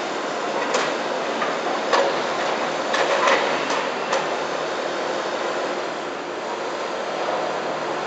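Compact excavator running while it digs broken pavement and dirt, with about six sharp knocks and scrapes of the bucket and a hand shovel in the first half, then a steadier run as the boom lifts.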